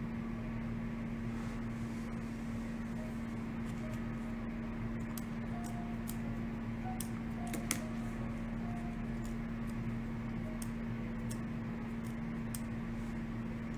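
Steady room hum holding one constant pitch, with scattered faint ticks and one slightly louder click about eight seconds in.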